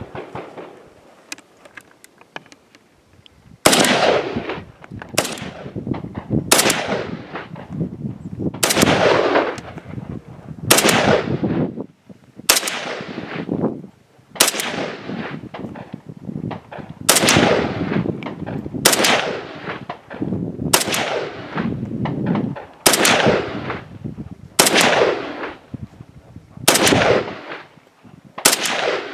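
AK-pattern rifle fired in slow, deliberate single shots, about fourteen rounds starting a few seconds in, one every second and a half to two seconds, each crack trailing off in a long echo.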